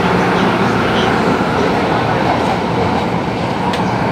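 Hong Kong MTR train running, heard from inside the passenger carriage: steady running noise of wheels on rail, with a couple of faint clicks near the end.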